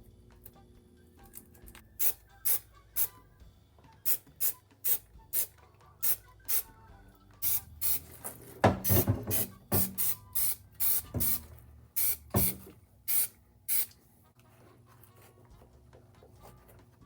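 Short hissing spray bursts, about twenty in a row, some coming in quick pairs, the loudest cluster about halfway through; they stop a few seconds before the end.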